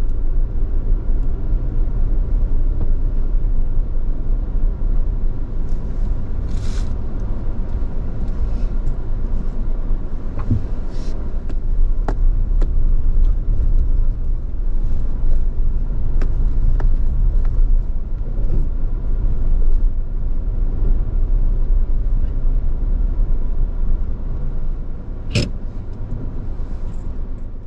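Suzuki Jimny JB64 driving along a forest road: a steady low rumble of engine and tyres, with a few sharp knocks and rattles, the loudest one near the end.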